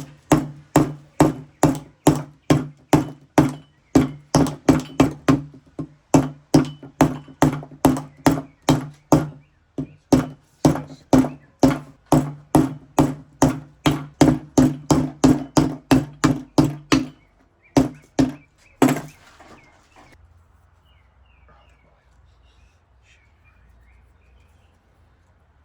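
Rubber mallet knocking on turbocharger parts during a rebuild, a fast run of even blows about two to three a second, each with a low ring. It pauses briefly twice, stops about three-quarters of the way through, and only faint background hiss remains.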